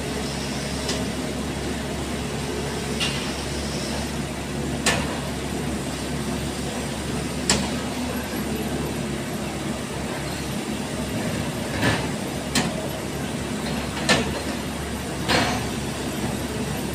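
Heavy diesel machinery, an excavator and a tipper truck, running steadily at an ore unloading point, with sharp knocks every few seconds, more often in the second half.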